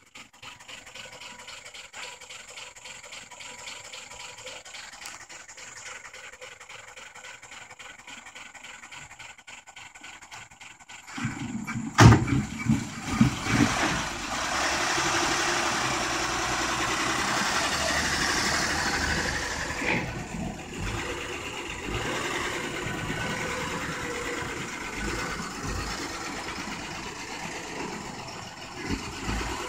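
1959 Chevrolet pickup truck engine being cranked, with a faint, fast, even beat for about eleven seconds. It catches with a loud jolt and a few uneven surges, runs fast for several seconds, then settles to a steady idle from about twenty seconds in.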